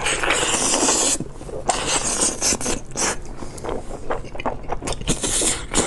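Close-miked eating sounds: meat being torn and gnawed off the bone, with a long scraping rasp over about the first second, then a run of short crackly strokes and a brighter rasp near the end.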